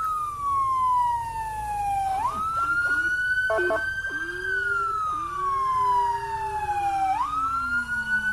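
Escort vehicle's electronic siren sounding loudly: a tone that slides slowly down in pitch and then jumps quickly back up, about three times over, with a second, lower tone gliding down in the second half.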